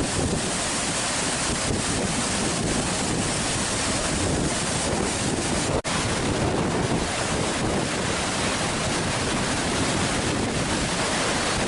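Floodwater rushing through the open spillway gates of a dam and churning in the river below: a steady, even rush of water, broken once for a moment about six seconds in.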